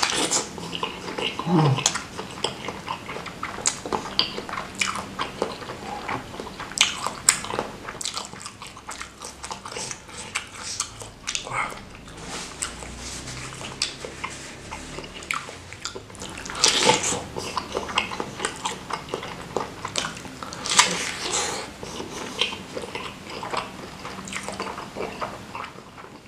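Close-miked eating: biting into and chewing a spicy bakso meatball soaked in chili broth, a continuous run of wet mouth clicks with louder flurries near the start and about two-thirds of the way through. A brief low falling vocal sound comes from the eater just under two seconds in.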